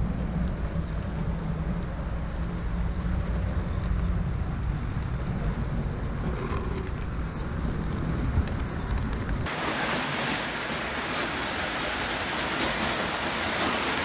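HO scale EMD E-unit diesel model locomotive running close by: a steady low motor hum with the rumble of its wheels on the track. About 9.5 s in it cuts abruptly to an even, higher hiss with faint ticks.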